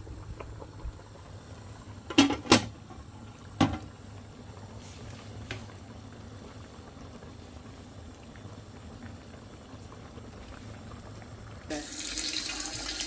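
A few sharp knocks about two seconds in, then a kitchen tap turned on near the end, water running into the sink to wash rice.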